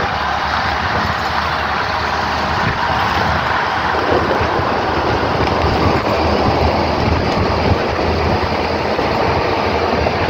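Moving bus heard from inside the cabin: steady engine drone with road noise. The low rumble gets heavier about four seconds in.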